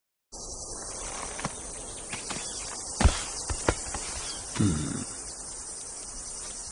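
Steady chirring of insects, broken by a few sharp thumps, the loudest two about three seconds in and half a second apart.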